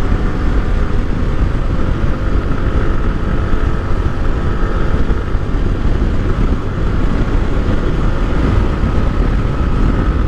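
Sport motorcycle cruising at a steady speed, heard as loud, steady wind rush over the rider's microphone with the engine running underneath.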